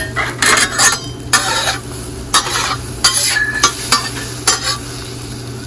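A utensil scraping and stirring scrambled eggs frying in oil on a griddle, roughly two irregular scrapes a second over a steady sizzle.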